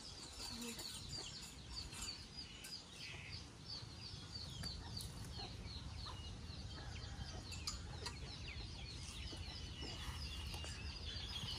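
Chickens, with a steady string of short high peeps, several a second, over a low background rumble.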